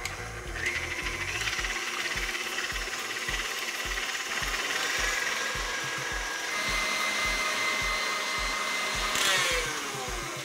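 Electric stand mixer running a wire whisk through whipping cream and white chocolate ganache in a glass bowl: a steady motor whine and whirr. Its pitch falls near the end as it winds down.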